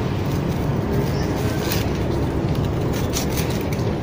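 Steady low rumble of city traffic, with a few short rustles and cracks about two and three seconds in as banana hands are worked off the bunch.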